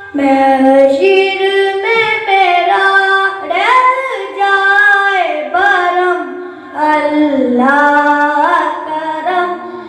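A boy's unbroken voice singing a naat (Islamic devotional song) unaccompanied into a microphone, holding long notes and ornamenting them with gliding melodic turns, with a short break for breath about two-thirds through.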